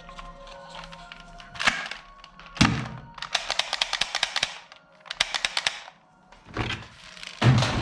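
Toy guns firing: single sharp shots, and two rapid bursts of about ten shots a second in the middle.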